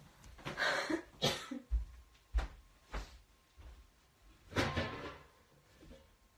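A person getting up and moving away: rustling of clothing and movement, three dull thumps like footsteps about half a second apart, and another rustling noise about four and a half seconds in.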